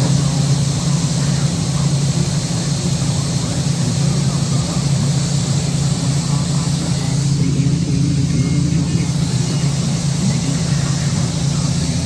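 John Deere combine running steadily while its unloading auger empties soybeans into a grain trailer: a steady machine drone with a strong low hum and hiss above it.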